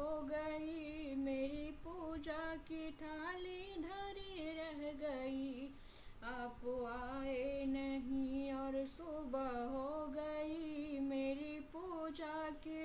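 A woman singing a Hindi devotional bhajan unaccompanied, in long drawn-out notes with a slight waver, phrase by phrase with short breaths about six and nine seconds in.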